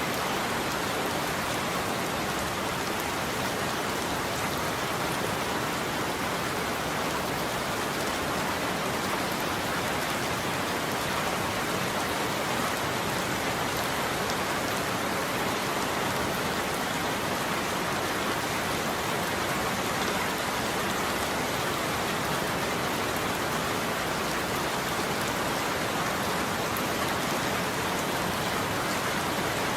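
Steady heavy rain falling on a surface: an even, dense hiss that holds the same level throughout, with no thunder.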